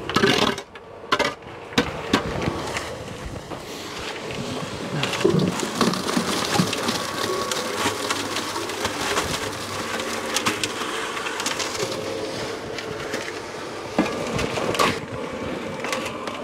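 Small portable cement mixer running, its drum turning with wet concrete and gravel tumbling and rattling inside, the mix sliding out as the drum is tipped. A few sharp knocks come in the first two seconds.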